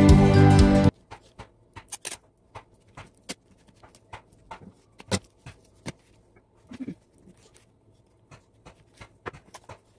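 Background music that cuts off about a second in, followed by soft scattered clicks and rustles of paper and a roll of clear sticky tape being handled.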